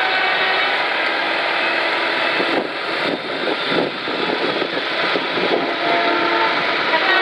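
Truck engines running as trucks drive past, a steady mix of engine noise.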